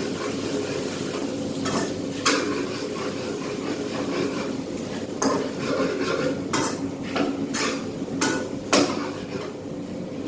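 A spatula knocking and scraping against a pan while wide rice noodles are stir-fried for pad see ew, with about eight sharp clacks over a steady low hum.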